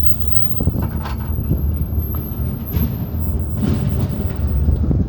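Steady low rumble of city street traffic, with a few short clacks scattered through it.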